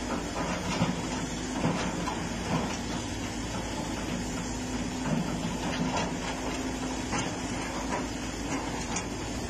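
Heavy diesel engine of a hydraulic excavator running under load as its arm shifts a large stone block onto a truck, the engine tone dipping lower about halfway through, with a few short knocks.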